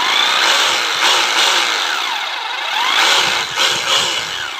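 Panasonic EZ7880 28.8 V cordless rotary hammer drill running without a load. Its motor whine rises and falls in pitch several times as the speed changes.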